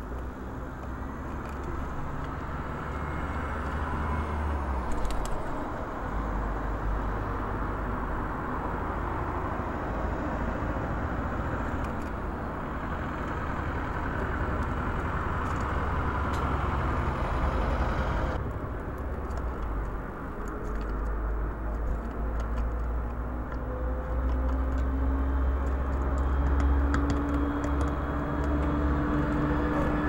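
Steady road traffic noise from passing cars, a low rumble, with one vehicle's engine note slowly rising in pitch over the last several seconds.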